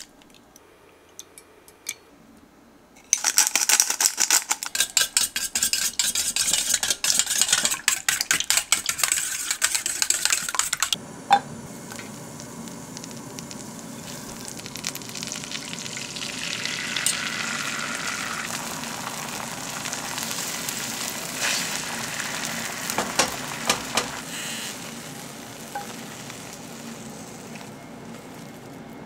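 Eggs beaten briskly in a stainless steel bowl, a rapid clatter lasting about eight seconds. After a sharp knock, butter and beaten egg sizzle steadily in a frying pan, stirred with chopsticks, with a few scattered clicks.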